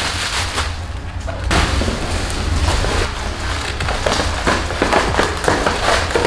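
Plastic wrap and foil packaging crinkling and rustling as a long wrapped plastic body panel is pulled out of a cardboard box, with many irregular crackles and a few dull knocks.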